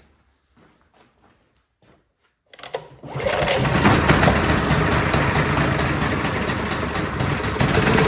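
Champion 224cc single-cylinder four-stroke generator engine starting cold on choke, catching about three seconds in and then running steadily and loudly. It runs with its carburetor freshly cleaned. A few light clicks come before it starts.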